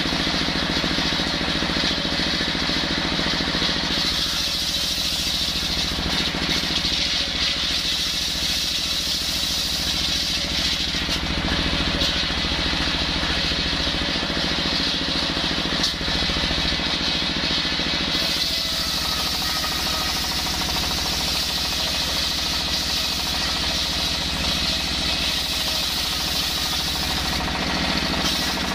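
A stationary single-cylinder diesel engine running steadily, belt-driving a large circular saw blade with a constant whine. Coconut timber is fed into the blade and ripped lengthwise, and the cutting noise grows brighter and harsher from about two-thirds of the way through.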